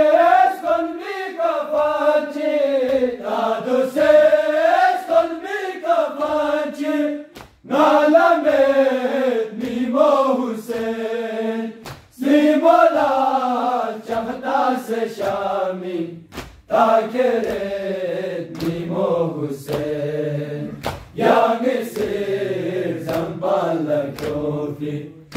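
Group of male voices chanting a Balti noha, a lament for Imam Hussain, in unison and unaccompanied. The chant comes in phrases of about four to five seconds, with short breaks for breath between them.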